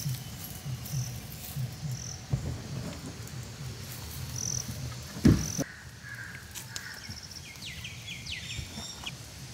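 Soft repeated pats and a louder thump about five seconds in as raw tuna steaks are pressed and turned in dry ground spice powder on a plastic sheet. Insects and birds chirp in the background, with a few quick falling bird chirps near the end.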